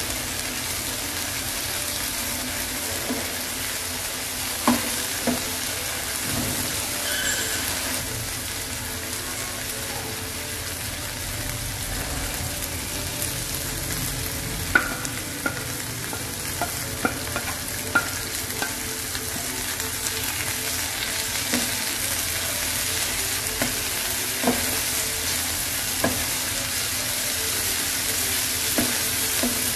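Corn kernels sizzling steadily in a non-stick frying pan while a spatula stirs them, with occasional sharp knocks of the spatula against the pan.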